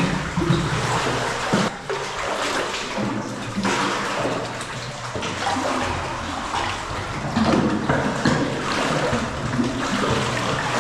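Water splashing and sloshing irregularly as people wade through a river cave's passage.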